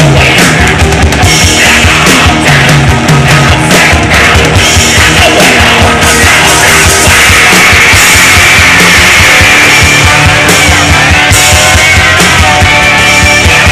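Live rock band playing loud: electric guitars, bass and drums. From about halfway in, sustained high notes that slide up and down rise over the band.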